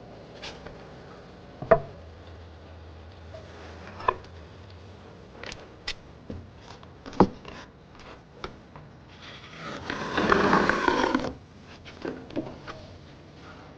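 Hand work on wood: scattered sharp knocks and taps, with a short stretch of scraping, rasping noise about ten seconds in.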